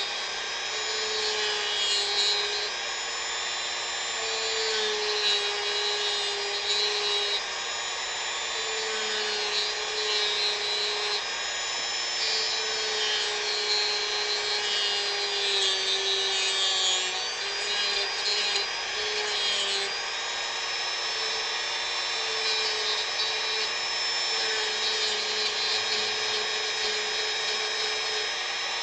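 Dremel rotary tool running continuously while carving wood, its motor whine wavering slightly in pitch as the bit cuts.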